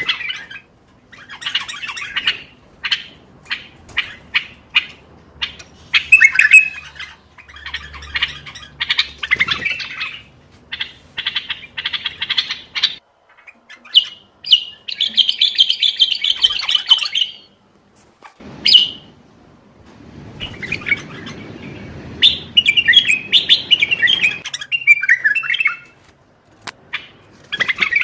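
Common bulbul singing: a run of short whistled song phrases and sharp calls, with brief pauses between them.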